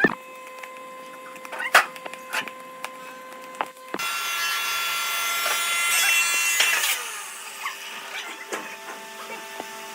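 Woodworking tool sounds on wood: a few scattered knocks and taps. At about four seconds a louder, steady cutting sound starts abruptly and eases off again after about three seconds.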